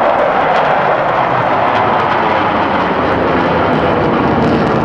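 Jet engines of a formation of nine fighter jets flying over: a loud, steady rushing noise from the Su-27s and MiG-29s of the combined Swifts and Russian Knights display teams.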